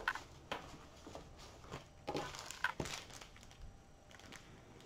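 Quiet rustling and crinkling in a few short scattered bursts as a diamond-painting canvas and plastic packets of drills are handled.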